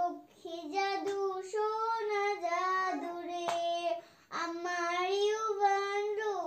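A child's high voice singing a slow melody in long, held notes, phrase after phrase, with a few sharp clicks between the phrases.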